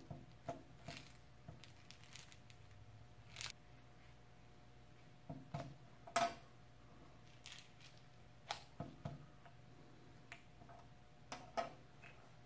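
A scattering of light clicks and taps from a small plastic bottle of copper BBs and its cap being handled and set down on a hard lab bench as the cap is taken off; the loudest tap comes about six seconds in.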